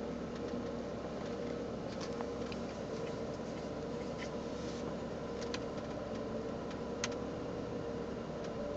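Car engine idling, heard from inside the cabin as a steady hum, with a few faint clicks.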